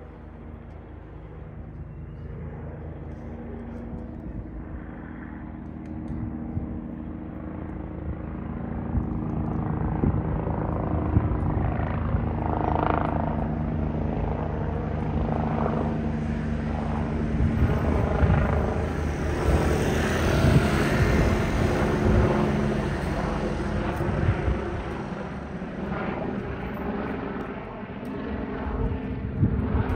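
Eurocopter EC145 twin-turbine helicopter circling overhead: a steady beat of the main rotor under a turbine whine. The sound grows louder over the first ten seconds or so, is loudest about two-thirds of the way through, then eases a little.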